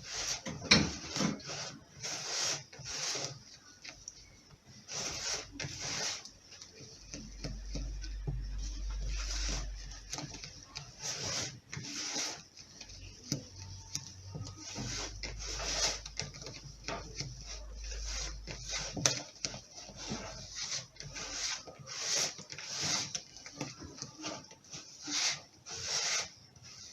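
Thick cake batter being stirred by hand in a bowl, the utensil scraping and rubbing against the bowl in irregular strokes, a stroke every half second to second or so.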